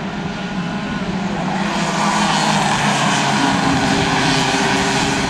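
Several racing kart two-stroke engines buzzing as a pack laps the track. The sound swells about two seconds in as a kart passes close.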